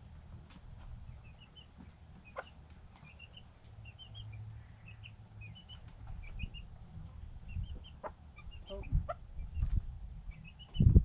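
Chickens, with a chick peeping in short high chirps, many times over. Low rumbling and knocks grow louder from about six seconds in, the loudest near the end.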